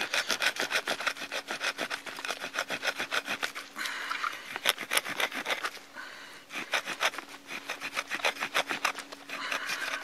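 Saw teeth on the spine of a TOPS Tom Brown Tracker knife rasping back and forth through a wooden stick, cutting a notch. The strokes come fast and even, about five or six a second, with a brief pause about six seconds in.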